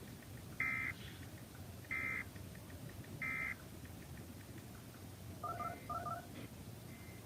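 Emergency Alert System end-of-message code: three short, identical screeching data bursts about a second apart, signalling that the alert is over. Two short double beeps follow about five and a half seconds in.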